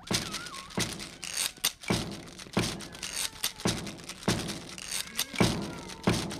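A slow, steady percussive beat of heavy knocks, about three every two seconds, with lighter clicks between them: a stomp-and-clap rhythm building up to a dance fight. A short wavering cry sounds near the start.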